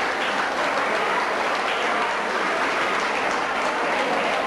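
An audience clapping steadily.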